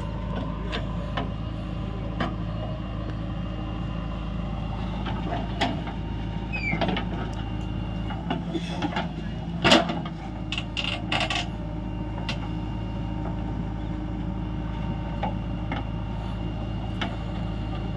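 Diesel engines of a Swaraj tractor and a JCB 3DX backhoe loader running steadily. Over them come scattered knocks and clatter of the backhoe bucket working soil and stones, with one loud knock about ten seconds in.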